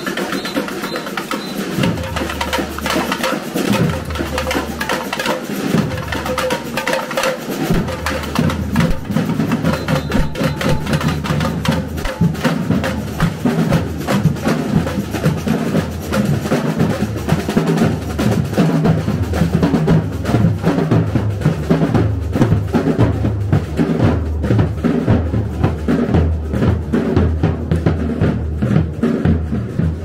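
Street carnival drum band playing a steady, driving rhythm on snare drums and deeper drums, growing fuller about two seconds in when the low drums come in.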